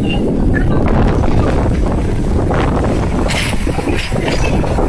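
Shimla toy train running on the narrow-gauge Kalka–Shimla line, a loud, steady, deep rumble of the carriage rolling along the track, heard from on board.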